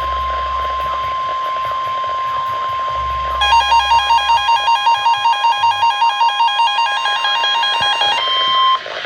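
NOAA Weather Radio 1050 Hz warning alarm tone, a single steady high beep that stops just before the warning voice. About three seconds in, a second buzzy electronic alarm joins it, flipping between two pitches about five times a second, and cuts off shortly before the steady tone ends. Faint radio hiss lies underneath.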